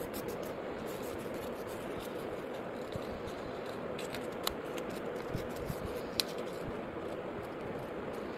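Stiff coloured paper being folded and creased by hand: soft rustling with a few short crinkle clicks over steady background noise.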